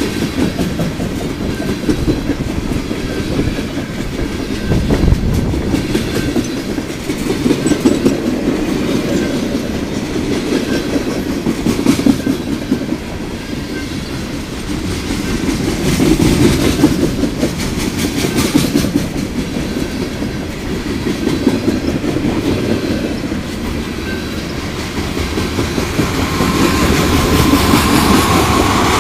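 Freight cars of a long mixed freight train rolling past: a steady rumble with wheels clicking over the rail joints, growing louder near the end.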